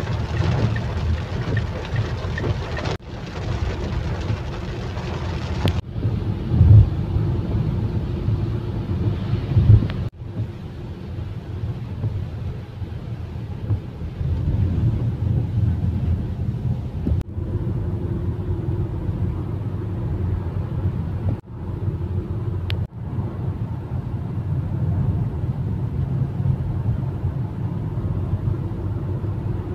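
Car driving on a wet highway, heard from inside the cabin: a steady low rumble of engine and tyres. During the first few seconds there is a hiss of rain and tyre spray, and two brief louder thumps come within the first third.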